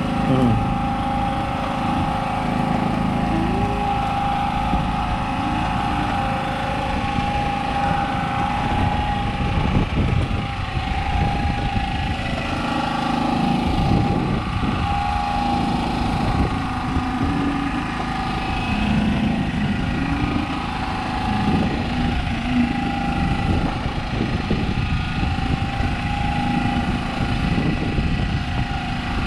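Small engine aboard a wooden fishing boat running steadily at constant speed: an even drone with a held hum that does not change.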